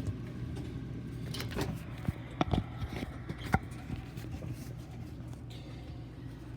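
Scattered sharp clicks and knocks of computer parts being handled and fitted into a desktop PC case, mostly in the first half, over a steady low hum.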